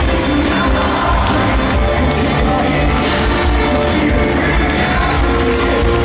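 Live pop-rock band playing loudly through a concert PA, with a male lead singer and drum hits, heard from within the audience with crowd voices mixed in.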